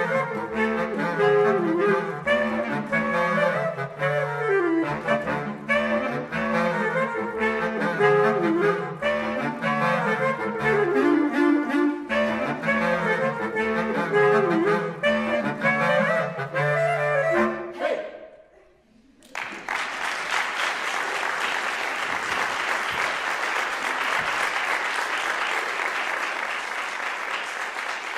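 Four bass clarinets playing a klezmer-style tune, a melody over a rhythmic low bass line, ending on a final chord about two-thirds of the way through. After a second and a half of silence, audience applause starts and goes on, easing slightly near the end.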